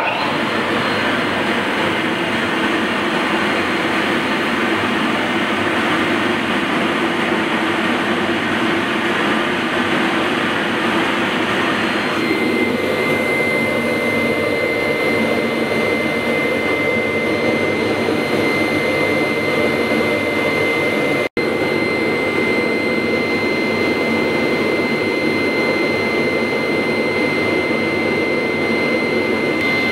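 Vacuum hold-down blower of an AXYZ CNC router running with a steady, loud rush of air. About twelve seconds in the sound shifts and a steady high whine joins it, as the airflow through the table's valves changes.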